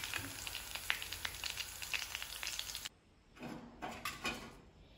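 Hot coconut oil sizzling in a cast-iron kadai as fried okra-and-peanut fritters are lifted out with a perforated steel skimmer, with light clicks and scrapes of the skimmer. The flame is off and the oil keeps sizzling on the iron pan's retained heat. The sizzle cuts off abruptly about three seconds in, leaving only faint, soft sounds.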